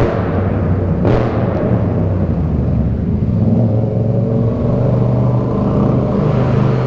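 Yamaha MT-07's parallel-twin engine running steadily at low throttle as the bike rolls slowly through a concrete parking garage, with a brief rush of noise about a second in.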